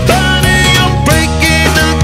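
Background rock music led by guitar, with a steady beat.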